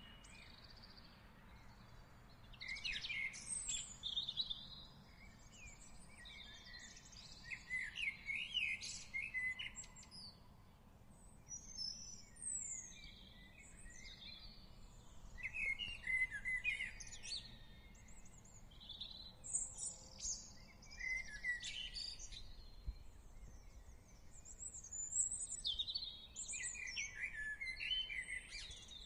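Several songbirds singing and calling: clusters of quick chirps, trills and whistled phrases every few seconds, over a faint low background noise.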